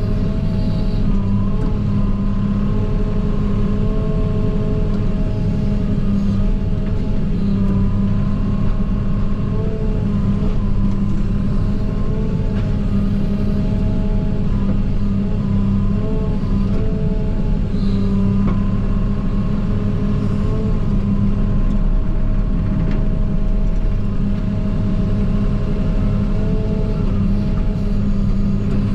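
JCB 48Z-1 mini excavator's diesel engine running steadily under work, heard from inside the cab. Its higher tones repeatedly dip and recover in pitch as the load on the engine changes.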